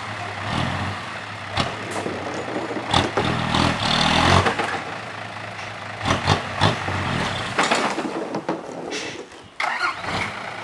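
Six-wheel dump truck's diesel engine running with the tipper bed raised while soil slides out of the bed, with irregular knocks and thuds throughout. The engine swells louder for a moment about three to four seconds in.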